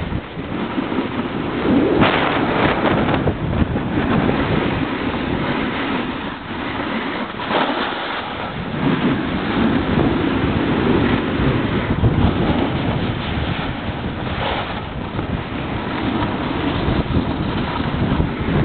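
Wind rushing over the microphone of a camera carried by a skier going downhill, mixed with the hiss and scrape of skis on snow, with a few louder surges.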